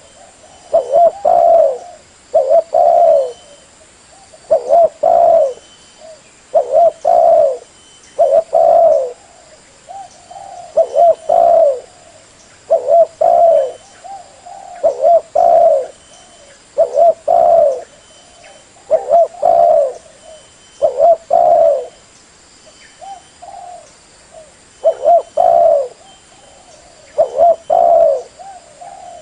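Spotted dove (terkukur) cooing: short runs of loud coos repeated about every two seconds.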